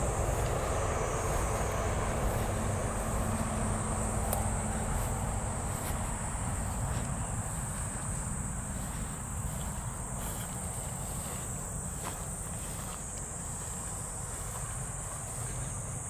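Insects droning steadily at one high, unbroken pitch, over a low rumble that fades away during the first several seconds.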